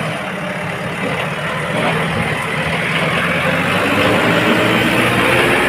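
JCB 3DX backhoe loader's diesel engine running steadily; from about two seconds in its note rises slowly and grows a little louder.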